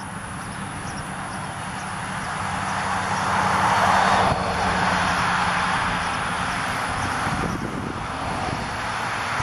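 A passing vehicle: steady rushing noise with a low hum. It swells to its loudest about four seconds in, drops off suddenly, then builds again near the end.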